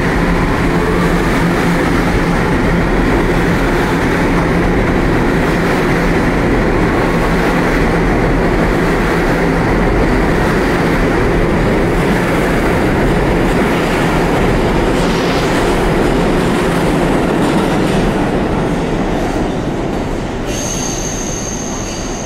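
NYC Subway R211A train departing a station: a rising motor whine as it starts off, under a loud steady rumble of wheels on rail that eases off after about 18 seconds as the cars pass. A high thin squeal comes in near the end.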